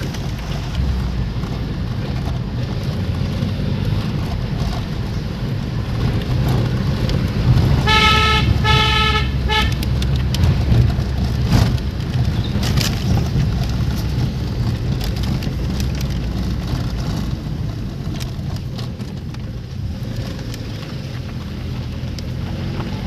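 Car engine and tyre rumble heard from inside the moving car's cabin. About eight seconds in, a car horn gives three short toots in quick succession.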